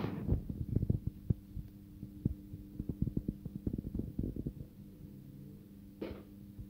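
Cats eating wet food from metal bowls: a stream of irregular soft clicks and smacks of chewing and licking, over a steady low hum.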